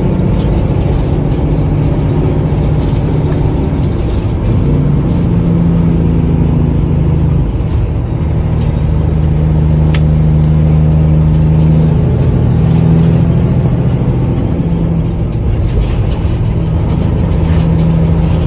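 Cummins ISX15 inline-six diesel in a Peterbilt 389 truck, running under way, heard inside the cab as a loud, steady low drone whose pitch steps up and down several times. A single sharp click about ten seconds in.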